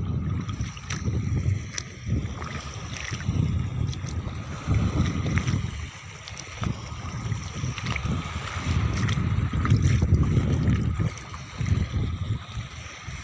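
Wind buffeting the microphone in uneven gusts of low rumble, over a faint steady high-pitched hum and a few scattered small clicks.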